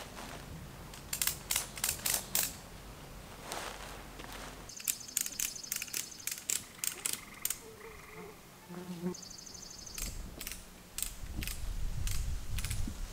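Ratchet tensioner on a tree tent's anchor strap being cranked: runs of sharp clicks, about three or four a second, in several bouts. A short warbling animal call sounds about eight seconds in, and a low rumble comes in near the end.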